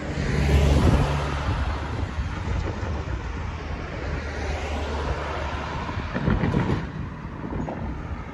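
Road traffic passing the crossing: vehicles going by, loudest about a second in and again midway, over a steady low engine hum.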